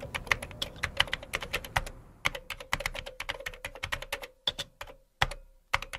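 Typing on a laptop keyboard: a quick, uneven run of key clicks that thins out after about four seconds into a few separate keystrokes, over a faint steady hum.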